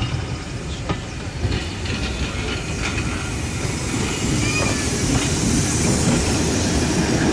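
Railway passenger coaches rolling slowly past, wheels clicking over rail joints, with the rumble and a hissing noise growing louder in the second half.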